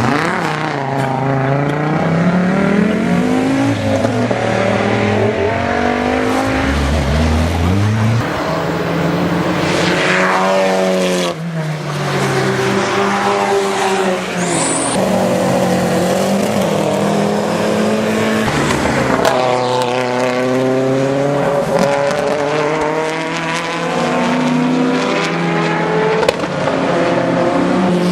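Turbocharged race car engines at full throttle, passing one after another. The engine note climbs and drops again and again through gear changes and passes.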